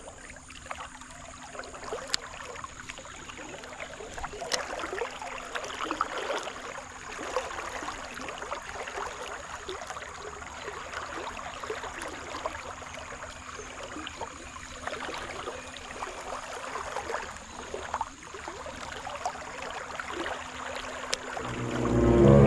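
Stream water flowing steadily over rocks, with a few faint clicks, and a brief louder low sound near the end.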